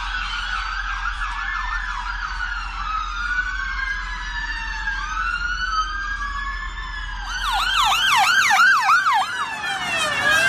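Several ambulance sirens sounding at once, their slow wails rising and falling over one another. About seven seconds in, one switches to a fast yelp of quick repeated sweeps for a couple of seconds before the wails take over again.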